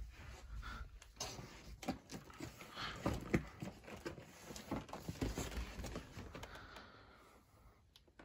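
Handling noise: irregular knocks, scuffs and rustles as cardboard firework cartons are bumped and shifted close to a phone's microphone, dying down near the end.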